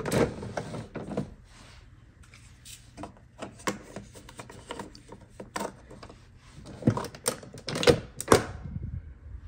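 Plastic clicks and knocks from a Keurig 2.0 single-cup coffee brewer being loaded by hand: the lid lifted, a K-cup pod set into the holder, then the lid pressed shut, with the loudest knocks near the end.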